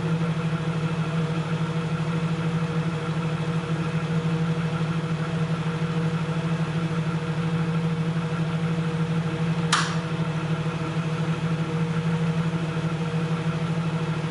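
Off-road 4x4's engine running steadily at low revs, with a single sharp click about ten seconds in.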